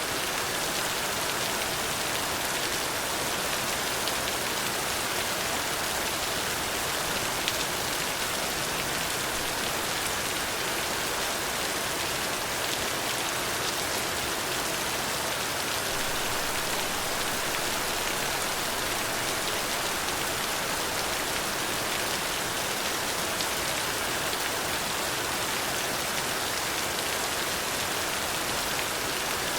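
Steady rain falling on a hard surface, an even hiss with faint individual drop ticks.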